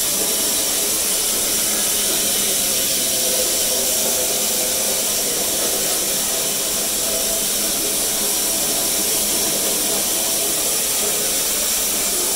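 Coal-fired Class B1a steam locomotive standing with steam hissing steadily and loudly, a high, even hiss.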